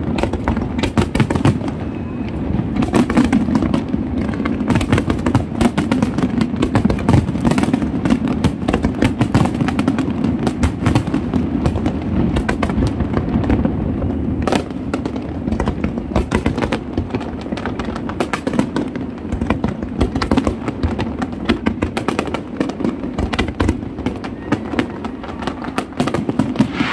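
Aerial fireworks display: rapid, overlapping bangs of shells bursting, one after another without a break, over a continuous low rumble.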